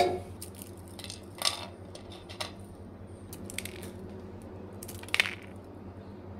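Crisp non-fried chakali, a rice-flour spiral snack, being snapped and crumbled between the fingers: scattered small crackles, with a sharper crunch about five seconds in.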